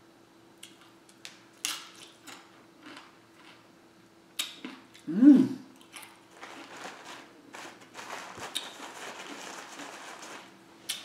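Tortilla chip being chewed: a scattering of sharp crunches, then a short voiced hum about five seconds in, the loudest sound here. A soft rustling noise follows near the end.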